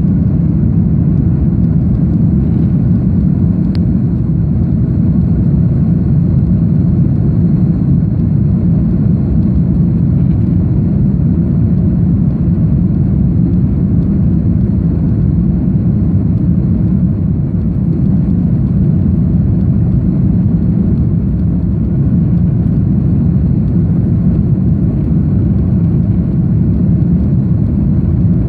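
Airbus A310 jet airliner heard from inside the cabin during takeoff or climb: a loud, steady rumble of engines and airflow with a faint high whine above it.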